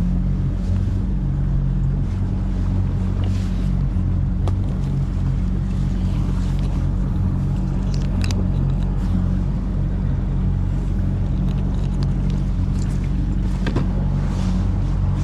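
Motorboat engine running steadily while the boat is under way, a low even drone with a few faint knocks over it.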